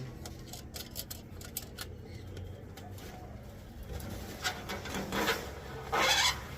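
Aviary parrots giving two harsh squawks, about four and a half and six seconds in, the second louder, over scattered small clicks and knocks.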